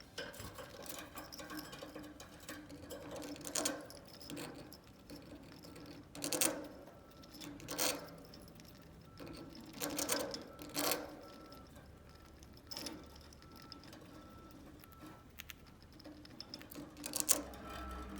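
Budgie pecking, clambering and scraping about its cage, giving irregular sharp clicks and taps spaced a second or more apart.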